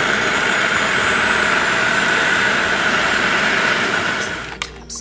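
Food processor motor running steadily as it minces fresh herbs (parsley, cilantro, green onion tops), then winding down and stopping about four seconds in.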